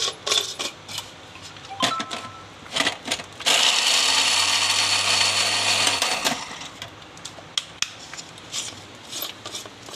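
Electric mixer-grinder running for about two and a half seconds, grinding walnuts to a powder, a steady motor whirr with a low hum that stops abruptly. Clicks and knocks of the jar and dishes before and after.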